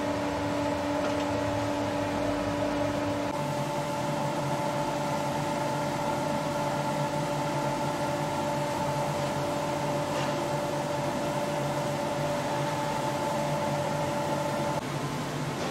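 Charnwood W730 14-inch bandsaw running without cutting: a steady motor hum with several steady tones. The tones shift about three seconds in and again near the end.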